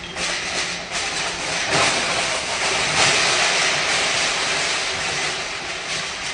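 A cascade of aluminium soda cans falling from a tall pallet stack and clattering onto the floor. It builds about two seconds in, is loudest around three seconds, then thins out, over a low steady hum.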